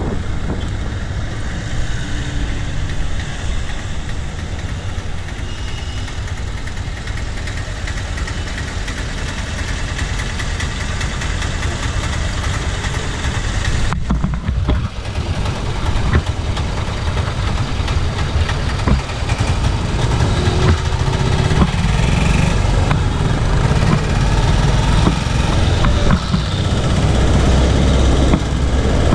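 Steady low rumble of street traffic and riding noise from a moving bicycle, getting louder in the second half.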